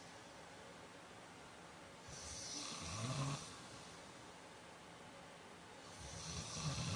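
A man snoring in his sleep: two snores about four seconds apart, each building up over a second or so to a louder end.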